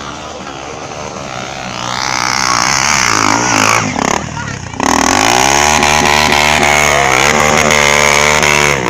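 Trail motorcycle's single-cylinder engine revving up, dipping briefly about five seconds in, then held at high revs before backing off near the end.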